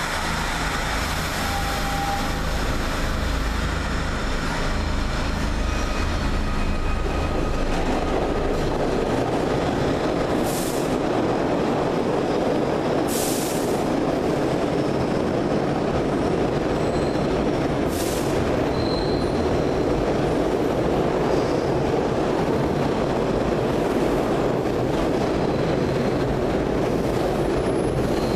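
SEPTA Broad Street Line subway train pulling out of the station: a steady loud rumble of wheels and motors on the rails, deepest in the first several seconds, with a few brief high-pitched wheel squeals in the second half.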